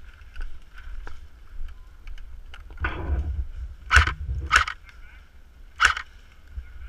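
Airsoft gunfire: three sharp single shots, the second about half a second after the first and the third about a second later, with a brief rustle of movement just before them and fainter distant shots around them.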